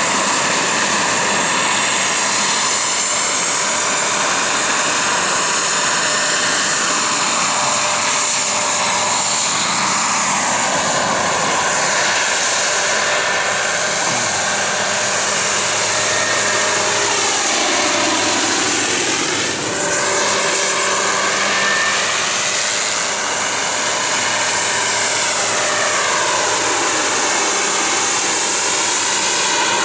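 Hughes 500 helicopter in flight: a steady, high-pitched whine of engine and rotors, its pitch dipping and rising again as it passes by, about two-thirds of the way through and again near the end.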